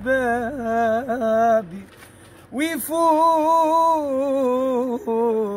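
A young man singing unaccompanied in Arabic, drawing out the word "shababi" (my youth) in long, ornamented held notes, with a breath pause about two seconds in before the next long phrase.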